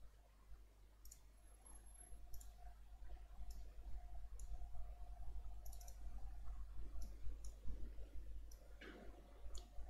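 Computer mouse clicking, about eight short, sharp clicks spaced irregularly, over a steady low hum.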